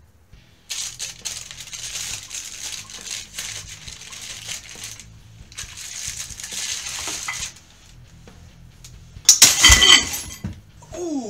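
Plastic grocery bag rustling and cans clinking as canned goods are loaded into it, then, about nine seconds in, a loud crash with metallic clanging as the 3D-printed Hatchbox PLA bag hanger breaks and the loaded bag of cans and weight plates drops to the floor.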